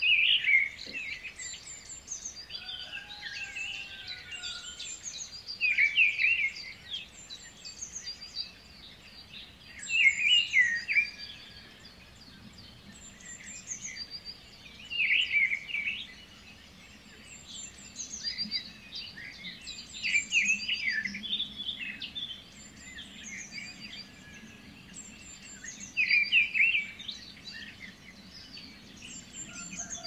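Songbirds singing in woodland: a loud, quick warbling phrase recurs about every five seconds, with softer high chirps and calls in between.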